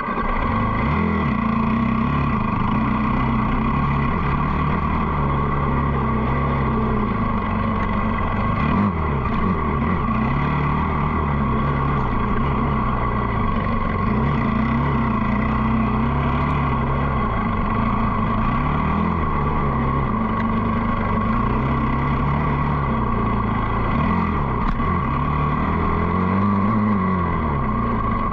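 Dirt bike engine running under a rider, its pitch rising and falling every few seconds as the throttle is opened and rolled off.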